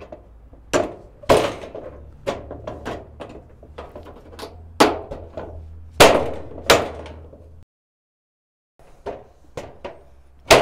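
Steel channel being tapped along onto the edge of a corrugated steel shed wall sheet to snap it into place: a string of irregular sharp knocks with a short metallic ring. The sound drops out completely for about a second near the end.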